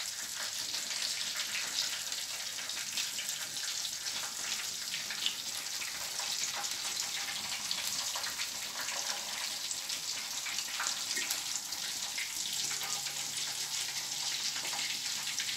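Nigerian fish rolls deep-frying in hot oil in an aluminium pan: a steady sizzle dotted with small crackles.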